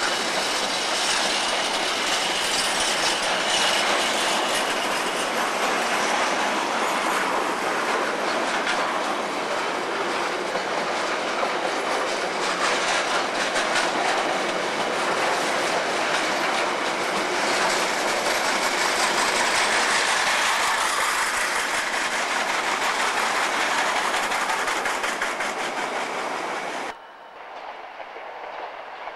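Container wagons of a long freight train rolling past, a steady rumble of wheels on rail with repeated clicking over the rail joints. The sound cuts off sharply near the end, dropping to a much quieter background.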